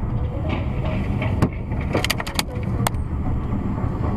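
Steady road and engine rumble of a moving car heard from inside the cabin by a dashcam, with a handful of sharp clicks about one and a half to three seconds in.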